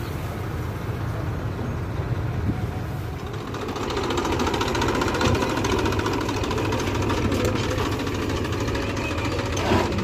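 Combine harvester's diesel engine running steadily, with a busier, denser mechanical clatter joining it and getting louder about three and a half seconds in.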